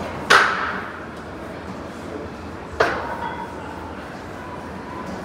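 A plate-loaded leg press heavily stacked with iron plates clanking with each rep, two sharp metallic clanks about two and a half seconds apart, each ringing briefly.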